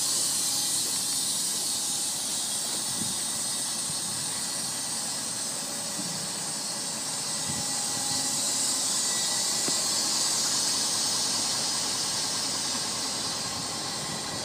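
Steady hiss of compressed air escaping from the air system of an aluminium end dump trailer on air-ride suspension.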